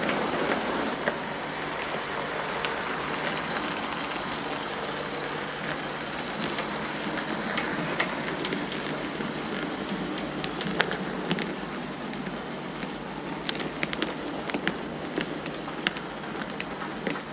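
OO gauge model trains running along the layout's track: a steady rumble of the locomotive motor and wheels, with frequent sharp clicks from the rolling stock, more of them in the second half.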